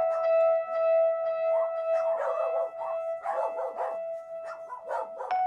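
Dogs barking in short, irregular bursts over a sustained note of background music.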